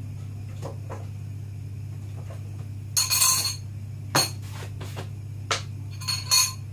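Metal spoon clinking against a small bowl and glass seasoning bottles being handled while a dressing is mixed: a few sharp clinks, with a longer ringing rattle about three seconds in and a cluster of clinks near the end. A steady low hum runs underneath.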